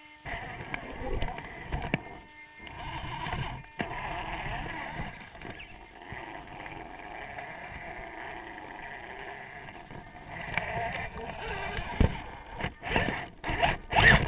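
Onboard sound of an electric RC rock crawler working over rocks: its tyres and chassis scraping and knocking on stone. Several sharp knocks come near the end and are the loudest part.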